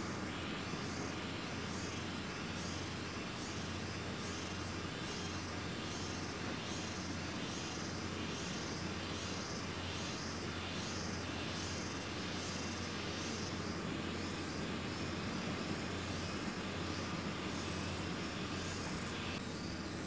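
High-pitched chirping repeating steadily, about one and a half chirps a second, over a faint low hum, with a short break near the end.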